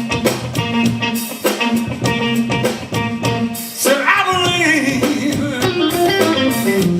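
Live blues trio of electric guitar, bass guitar and drum kit playing a steady beat. From about four seconds in, a bending melody line slides down in pitch.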